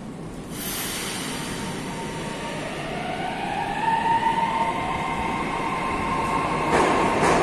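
St Petersburg metro train pulling into the platform: rumbling noise that grows louder, with a whine rising in pitch and then holding steady. Two sharp noises come near the end.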